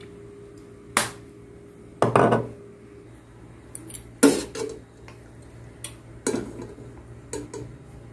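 Kitchenware clinking and clattering, including a metal ladle knocking and scraping against a pot of boiled vegetables. There are about five separate sharp clatters, a second or two apart.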